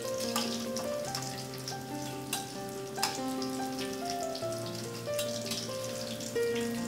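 Tofu and carrot croquettes sizzling as they deep-fry in hot oil in a wok, with a few sharp clicks of the metal spatula against the wok, over background music with a slow melody.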